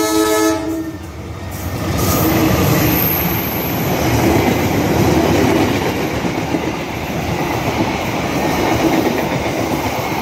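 A CC201 diesel-electric locomotive's horn, whose blast stops about half a second in. The locomotive and its passenger coaches then run close by, the wheels rolling loudly and steadily on the rails.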